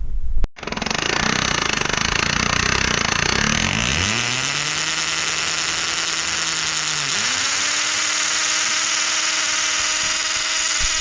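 Power drill running under load, its motor pitch climbing, dipping briefly about seven seconds in and picking up again.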